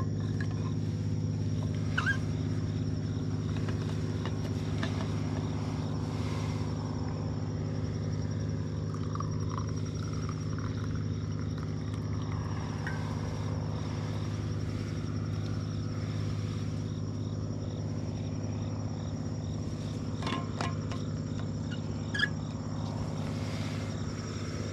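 A steel vacuum thermos being handled: coffee poured into its cup lid, with a few small clicks and clinks of the lid and cup. All of it sits over a steady low mechanical hum that is the loudest sound throughout.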